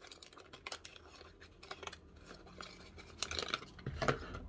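Small cardboard mascara box being opened by hand and the mascara tube slid out: scattered light clicks and scrapes of card, busiest about three seconds in.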